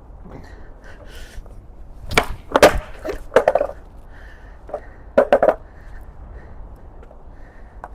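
8.5-inch double-kick skateboard being ollied: sharp knocks of the tail popping and the board and wheels landing. A loud cluster comes about two seconds in, with more knocks just after, and another pair about five seconds in.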